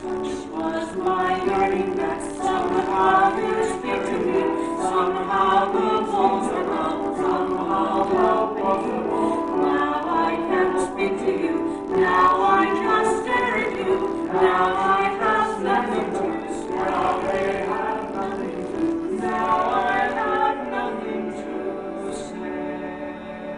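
Voices singing a Broadway show tune over orchestral accompaniment, sung live on stage.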